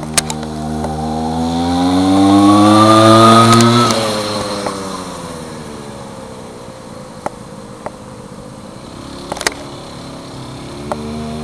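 50 cc gas scooter engine running at high revs as it passes: its pitch and loudness climb as it approaches, peak about three seconds in, then the pitch drops sharply as it goes by and the sound fades into the distance. Near the end the engine note comes up again, steady.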